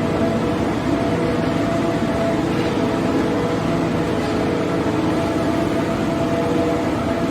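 A machine running steadily, a constant mechanical drone with a steady hum in it.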